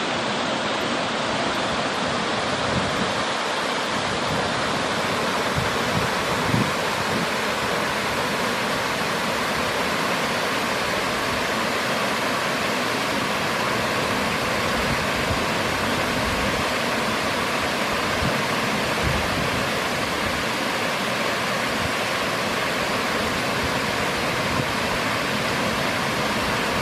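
Water spilling over a low river weir: a steady, even rush of falling water.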